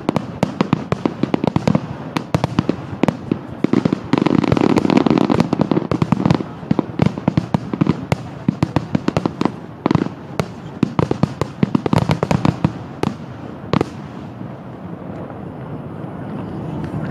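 Fireworks closing barrage: a dense, rapid run of shell bursts and crackle, heaviest about four to six seconds in. It thins out and stops about fourteen seconds in.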